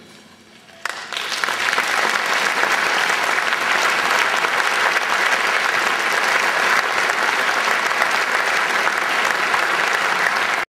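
Audience applauding at the end of a concert piece, breaking out suddenly about a second in and then holding steady.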